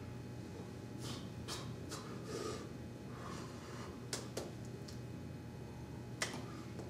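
Steady low hum of a quiet room, with a few faint sharp clicks and short rustles scattered through it.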